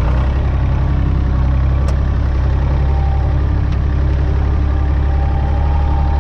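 Massey Ferguson 135 Multi-Power tractor's three-cylinder diesel engine running steadily under way in high gear.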